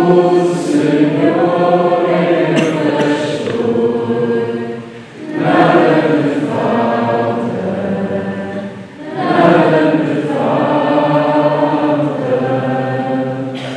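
A choir sings the responsorial psalm refrain in three slow, held phrases, with a short breath between each.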